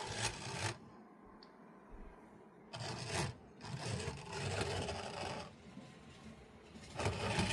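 HO-scale 0-10-0 steam locomotive's electric motor and gears running in uneven bursts with a scraping, whirring sound, stopping and starting again. The gear is slipping where the motor meets the worm gear, which the owner puts down to a motor–worm gear interface problem.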